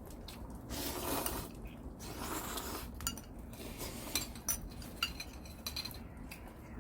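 Metal utensils clinking and scraping against dishes and pots during a meal: two longer scraping or rustling sounds in the first three seconds, then a run of sharp clinks, some with a short ring.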